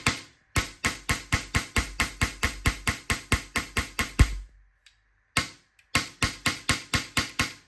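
HPA airsoft rifle with a Gate Pulsar engine test-firing in rapid strings of sharp air-valve shots, about five a second. One long string stops about four seconds in, a single shot follows, and a second string starts about a second later.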